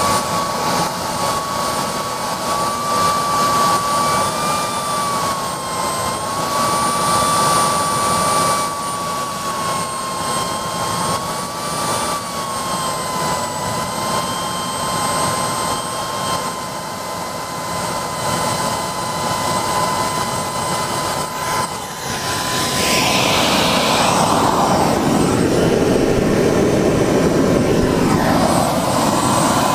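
Homemade 160 N model turbine jet engine running on diesel: a steady high whine that wavers slightly in pitch. About 22 seconds in, a louder rushing roar comes in that swells and fades.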